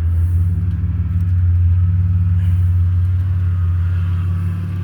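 A steady low motor hum, like an engine running at idle, with a few faint light clicks.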